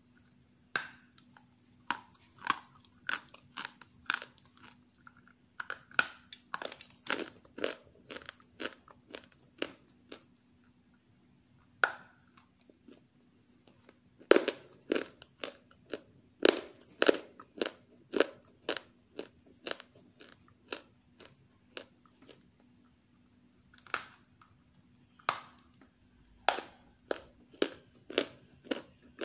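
Hard, half-roasted grey clay being crunched and snapped into pieces: a string of irregular sharp cracks, thickest and loudest about halfway through.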